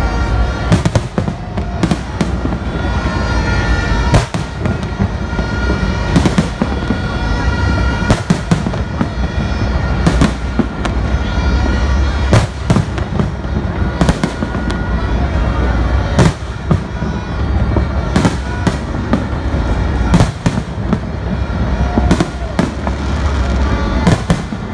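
Fireworks display: aerial shells bursting one after another, a loud bang every second or two with smaller pops between, over a constant low rumble from the barrage.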